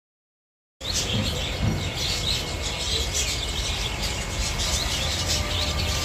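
Silent for the first second, then many small caged birds chirping together in a dense, overlapping chatter over a low background rumble.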